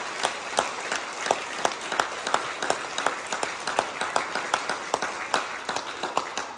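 A large crowd of schoolchildren applauding in a reverberant hall, with a few loud claps keeping a steady beat of about three a second over the general clapping. The applause starts to die away near the end.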